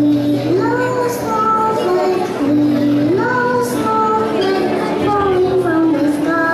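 Young children singing a song with instrumental accompaniment, the melody moving in held notes with short upward slides.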